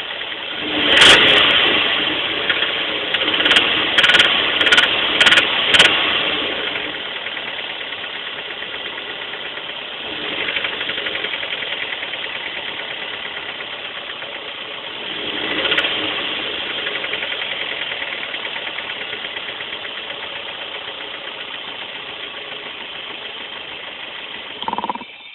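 Toyota 1ZZ-FE 1.8-litre four-cylinder engine with a knocking connecting rod: it revs once, is blipped about five times in quick succession, then idles with two brief revs before cutting off. The knock means a failing rod bearing.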